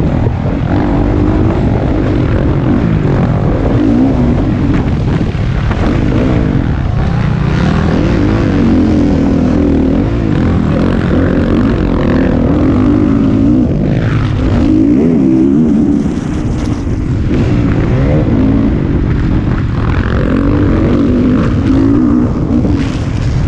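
Motocross bike engine heard close from on board at race pace, its pitch climbing and dropping again several times as the rider works the throttle and gears.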